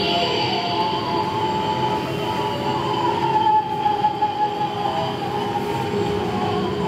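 A song played back through an FM radio's speaker, recovered by demodulating the audio carried on a frequency-shifted laser beam. It comes through distorted and buried in hiss, with a wavering melody line.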